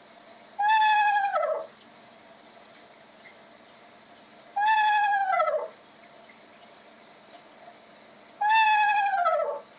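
An animal call, three times about four seconds apart: each a clear, pitched call of about a second that slides down in pitch at its end.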